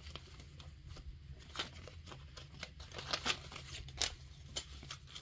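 Faint, scattered crisp rustles of paper banknotes being handled and slipped into a plastic pouch in a cash-envelope binder.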